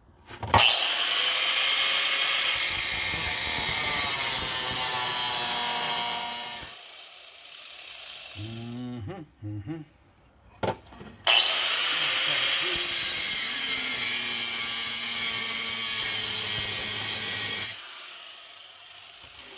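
A power cutting tool slicing through a sheet-metal chainsaw muffler in two runs of about six seconds each, with a pause of a few seconds between. Each run starts with a rising whine as the tool spins up, then holds steady through the cut.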